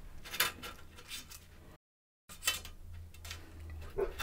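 Light clicks and scrapes from a tape measure being worked along an aluminium channel profile, a handful of short handling noises. The sound cuts out completely for about half a second near the middle.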